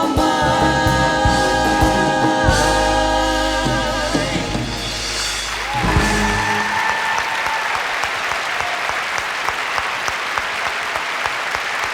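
A female vocal trio sings the held last word of a ballad in close harmony over the band's sustained closing chord. The chord cuts off about six seconds in, and audience applause follows.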